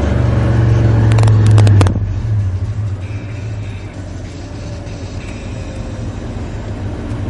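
Engine of a modified 1991 Chevy 1500 pickup pulling hard for about two seconds, with a few sharp clicks, then easing off to a quieter, steady run.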